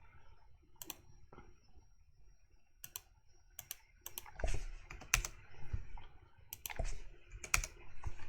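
Computer keyboard and mouse clicks. A few single clicks come in the first half, then a busier run of key presses from about halfway through.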